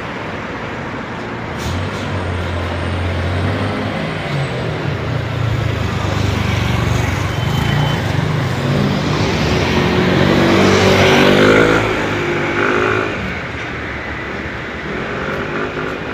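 A bus passing by: its engine drone builds up over several seconds, is loudest about two-thirds of the way through, then falls away as it moves off.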